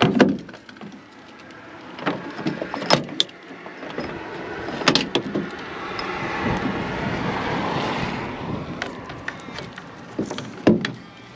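Handling noises while gear is being set up: scattered knocks and clicks, with a longer swell of rustling about six to eight seconds in.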